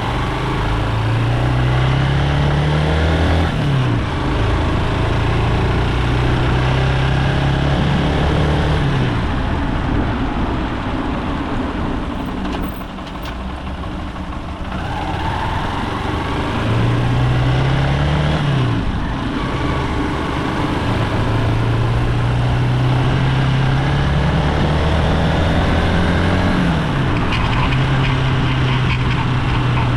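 Honda XR190's single-cylinder four-stroke engine pulling up through the revs twice and holding speed, with a quieter off-throttle stretch in the middle where the bike coasts on engine braking. Off the throttle like this, the owner hears a rasping like a scraped güiro, a noise the bike has made since it was almost new.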